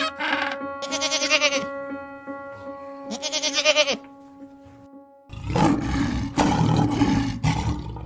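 African penguins braying in a few wavering, donkey-like calls over steady background music. Just past the middle a loud, rough, noisy sound takes over for about two and a half seconds.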